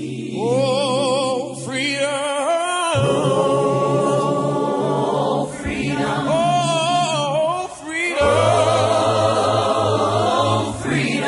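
An a cappella choir singing a slow gospel-style spiritual in long held notes with vibrato, over a steady low sustained note. The phrases break briefly about three seconds in and again about eight seconds in.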